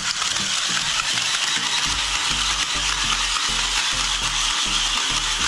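Battling toy mechanisms running in a steady fast mechanical clicking and whirring. A low pulsing hum joins about two seconds in.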